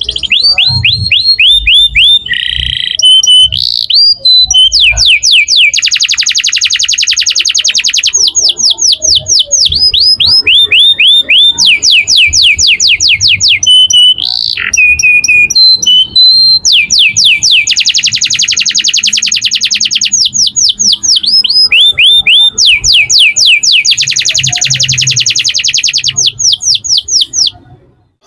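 Domestic canary in a cage singing a long, loud song. It runs through series of fast repeated notes, each sweeping downward, and dense rapid trills, with short chirps between the phrases. The song fades out near the end.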